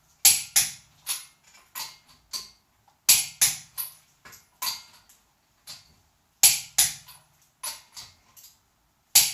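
Click-type torque wrench tightening the lug nuts of an aluminum car wheel to 80 ft-lb, clicking sharply as each nut reaches torque, about every three seconds, with lighter clinks of the socket and wrench between.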